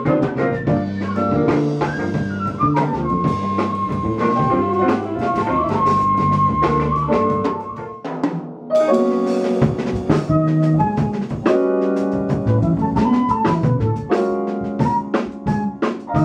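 Live jazz-funk band playing: drum kit, electric bass, electric guitar, keyboards and flute. About eight seconds in the band thins out for a moment, then comes back in together on a strong hit.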